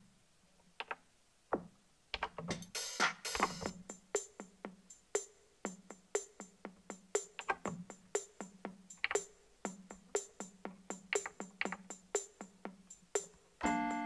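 Yamaha PSS-A50 mini keyboard's electronic drum sounds playing a beat of sharp hits at about two a second, after a couple of seconds of near quiet with a few clicks. Just before the end a held synth chord comes in.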